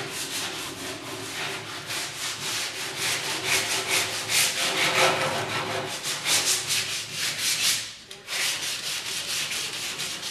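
Abrasive sandpaper rubbing over cured Bondo body filler on a vehicle fender in quick repeated strokes, with a brief pause about eight seconds in.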